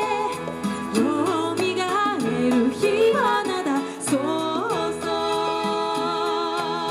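Female voices singing an Okinawan song with musical accompaniment. Bending melodic phrases give way, about two-thirds of the way in, to a long held note with vibrato.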